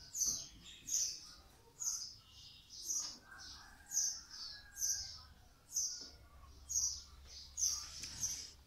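A small bird chirping over and over, a short high chirp about every second.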